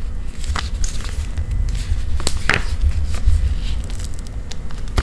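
Handling noise: a low rumble from a handheld camera being moved, with scattered soft rustles and clicks as fingers squeeze and turn a leather slide sandal.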